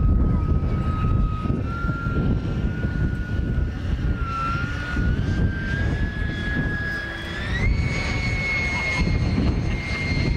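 Aeronaut Rafale radio-controlled model jet flying overhead. Its engine whine climbs in steps and jumps higher about three-quarters of the way through, as the throttle is opened, over a steady low rumble.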